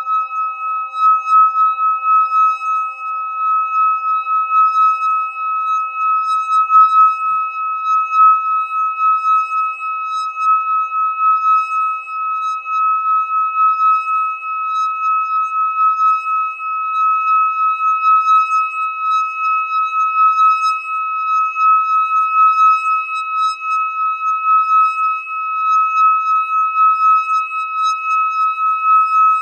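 Metal singing bowl held on the palm, its rim rubbed with a wooden stick, giving a steady, sustained singing tone with a quick pulsing wobble. Fainter lower tones from other bowls fade away beneath it.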